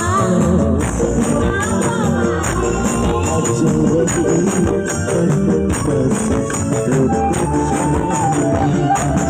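Loud music with a tambourine jingling over a heavy bass line and a wavering melody.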